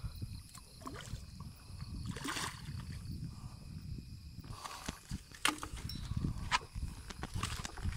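Water splashing and sloshing as a hooked river fish is netted and lifted from the water. A low rumble of handling runs underneath, and sharp knocks come in the second half as the net is brought onto the concrete bank.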